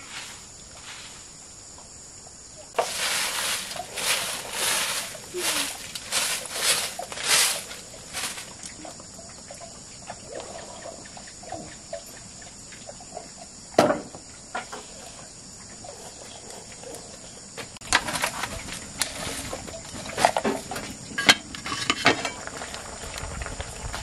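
Insects chirring steadily, a constant high-pitched drone. Over it come two stretches of irregular rustling and scraping handling noises, one a few seconds in and one late on, and a single sharp knock about midway.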